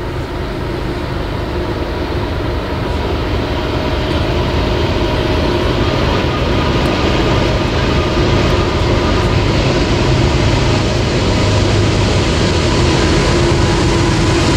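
An approaching train's diesel locomotive, a low rumble with steady tones that grows steadily louder.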